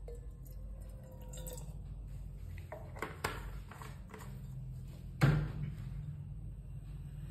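Water poured from a bottle into a metal saucepan for about a second and a half, with a faint ringing tone, followed by a few light clicks and one sharp knock about five seconds in.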